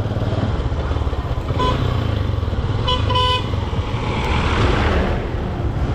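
Motorcycle engine running steadily under way, with a short horn toot about one and a half seconds in and two more quick toots about three seconds in. A rush of road and traffic noise swells near the end.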